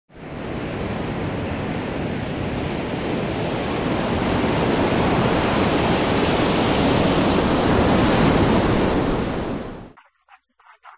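Ocean surf: a steady wash of breaking waves that swells a little and then cuts off abruptly near the end.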